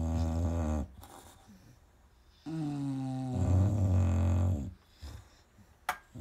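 Sleeping dog snoring: a long pitched snore that ends just under a second in, then, after a pause, another long snore of about two seconds. A short sharp click comes near the end.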